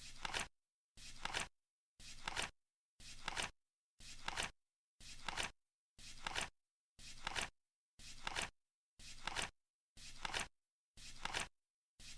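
Flip-clock timer sound effect ticking once a second: each second a short flap of noise that ends in a sharp snap, with silence between.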